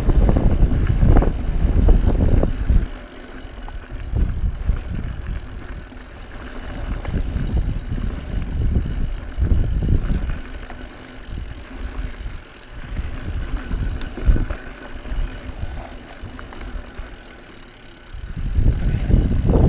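Mountain bike ridden over a rough dirt-and-rock trail, heard from a camera on the rider or bike: a rumble of tyre and frame rattle with irregular knocks over bumps, and wind buffeting the microphone. It is loudest for the first few seconds and again near the end.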